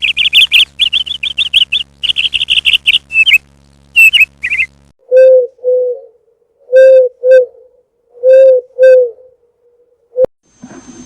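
A small bird chirping in fast runs of high notes for about five seconds. Then three pairs of low two-note hooting bird calls follow, with pauses between the pairs.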